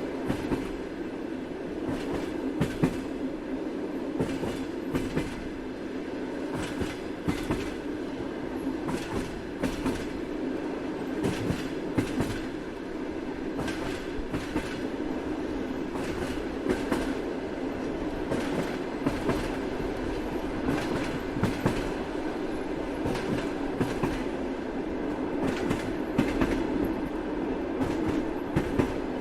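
Train in motion, rolling steadily with a constant rumble and the clickety-clack of its wheels over the rail joints, many clicks a second.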